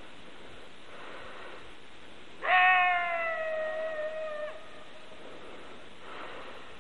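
A loud, drawn-out call about two and a half seconds in, pitched and slightly falling, lasting about two seconds before it stops.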